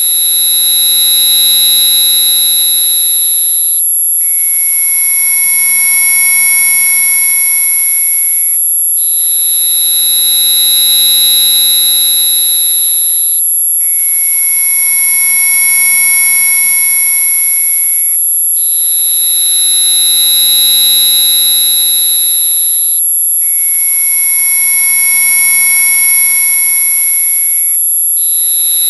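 Synthesized mosquito-repellent tone track: a steady very high-pitched whine over a cluster of pure electronic tones, breaking off briefly about every five seconds. With each break the strongest middle tone steps between a higher and a lower pitch, so the pattern alternates.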